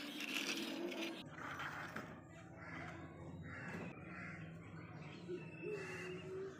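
Crows cawing repeatedly in the background, about once a second, over a low steady hum. A short rustling hiss in the first second is the loudest sound.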